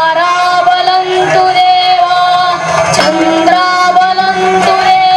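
A singer holding long, slightly wavering notes over sustained instrumental accompaniment, in the chanted style of a devotional stage song, with a single percussive stroke about three seconds in.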